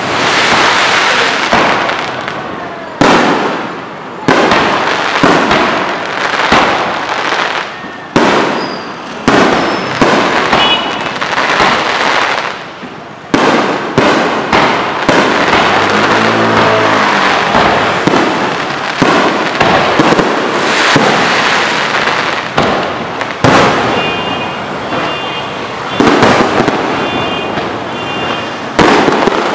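Aerial fireworks shells fired from trucks, bursting overhead one after another, a sharp bang every one to two seconds, each trailing off in crackle and echo.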